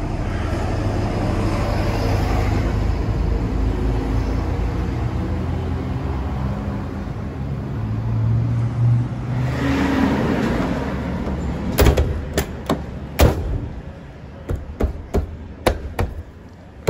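A steady low rumble for about nine seconds, then a string of sharp knocks and clacks from the rear of a Chery Tiggo as its tailgate and hard spare-wheel cover are handled and knocked, testing for rattle after foam blocks have been fitted.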